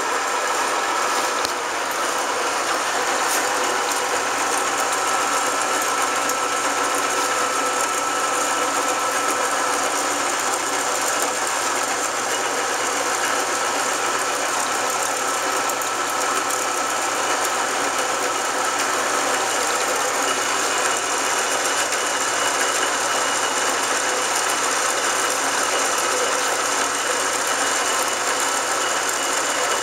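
1981 Dainichi SHB heavy-duty engine lathe running under power, its chuck spinning a bar while the tool takes a cut. The gearhead and cut make a steady mechanical din with a steady whine.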